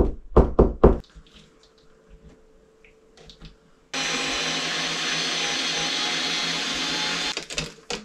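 Cordless drill running at a steady speed for about three and a half seconds, driving a screw through a plastic wallplate bracket into the wall; it starts abruptly about halfway in and stops shortly before the end. A few sharp taps come in the first second.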